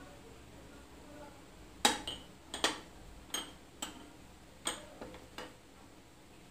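A spoon clicking and tapping against a textured glass dish, with about eight sharp, separate clicks over a few seconds.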